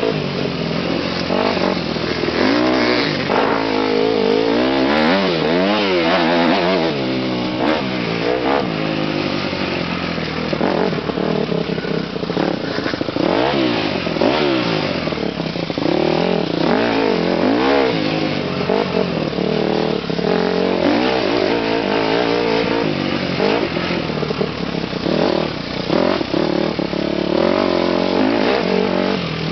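Motocross dirt bike engine heard from on board while riding a dirt track, its revs climbing and dropping over and over as the rider works the throttle and gears.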